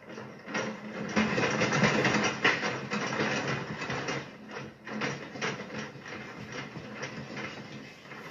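Earthquake shaking a workshop: dense rattling and clattering of objects over a low steady hum, loudest in the first few seconds and then easing. Heard as security-camera audio played back through a laptop speaker.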